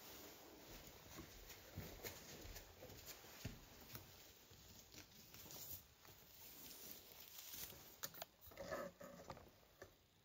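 Faint rustling and soft ticks of a braided silk obijime cord and obi fabric being handled as the cord is tied, with a brief louder rustle near the end.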